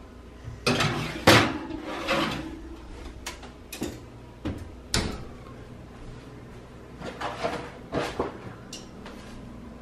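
Metal baking sheet clattering onto a wire oven rack, the rack sliding in and the oven door being shut: a series of metallic knocks and clanks, the loudest about a second in, with another sharp knock around five seconds and a cluster of knocks near the end.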